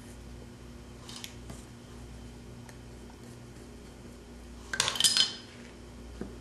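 Metal taxidermy tool clinking in a quick cluster of sharp clicks about five seconds in, with fainter clicks just after a second in, over a steady low hum.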